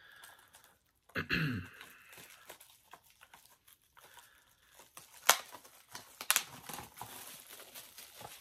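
Plastic wrapping crinkling as a Blu-ray case is handled, with two sharp clicks about five and six seconds in. A short sound dropping in pitch comes about a second in.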